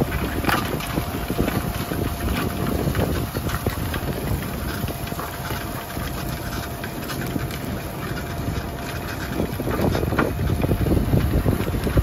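Fendt 720 tractor's six-cylinder diesel engine running steadily under load as it pulls a reversible plough through the soil, growing louder near the end as it comes closer.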